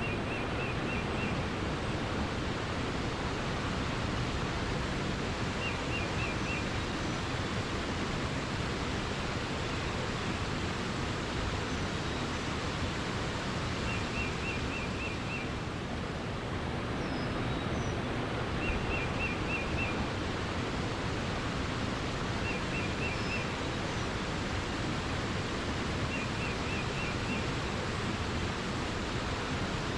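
Steady rushing water, a stream or waterfall, under a songbird that repeats a short phrase of about five quick notes every few seconds.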